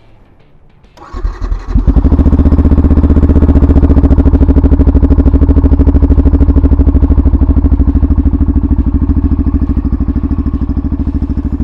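Yamaha FZS FI V3's 149 cc single-cylinder engine starting about a second in, then idling steadily, heard close to the exhaust muffler.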